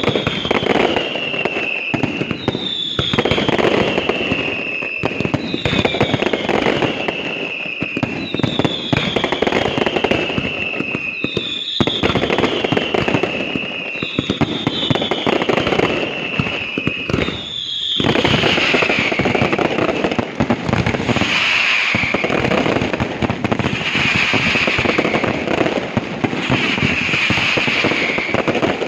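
Aerial fireworks display with dense crackling and bangs, and a repeated whistle falling in pitch about once every second and a half. About eighteen seconds in, the whistles give way to a denser, continuous barrage of crackles and bursts.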